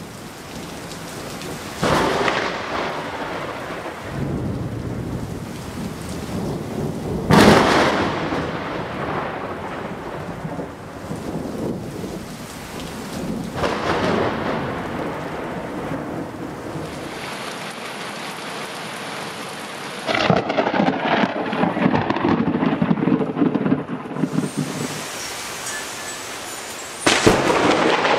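Heavy rain with a series of close thunderclaps, about five in all, each a sudden crack that trails off into rumbling; the loudest comes about a quarter of the way in. The sharp onsets are typical of lightning striking close by.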